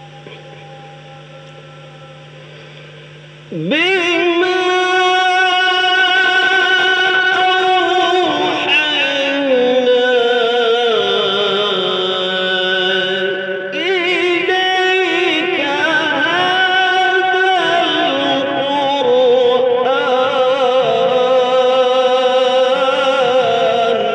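A solo voice singing a slow devotional melody in a Middle Eastern style, with long drawn-out notes that bend and waver. It comes in suddenly about three and a half seconds in, after a steady low hum.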